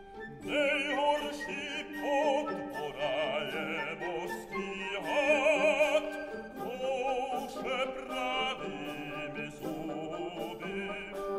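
Operatic singing with strong vibrato over an orchestra. A solo voice enters about half a second in, after quieter orchestral strings, and sings in phrases with sustained orchestral chords beneath.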